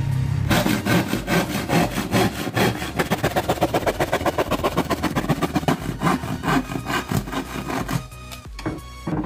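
Handsaw cutting through a 9 mm plywood sheet with quick, even strokes, stopping about eight seconds in.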